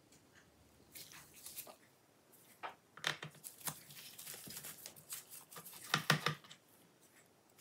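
Handling noises from screw removal on a laptop's bottom cover: irregular clicks, scrapes and rustles of a screwdriver, screws and nitrile-gloved hands, busiest from about three seconds in and loudest near the end.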